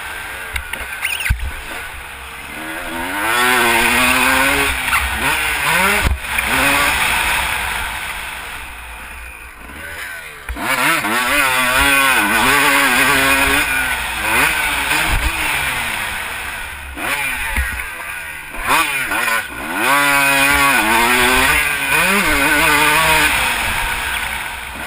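Motocross dirt bike engine heard from the rider's helmet, revving up and falling off again and again as the throttle opens and shuts through the course. Wind rumbles on the microphone, and a few sharp knocks stand out.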